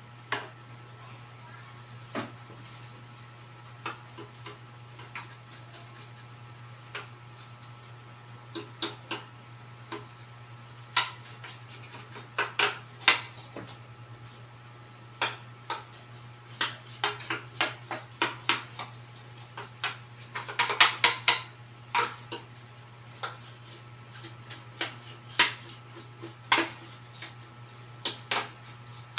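Irregular light clicks, clinks and scrapes of hand tools and parts being handled while the board's housing is cleaned, with a denser run of scraping and clatter about twenty seconds in. A steady low hum runs underneath.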